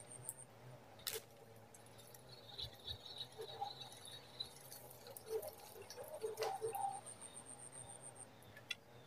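Faint swamp-forest ambience: a thin, steady high-pitched insect-like whine, with birds calling in short chirps and a warbling trill. Two sharp clicks, about a second in and again past the middle.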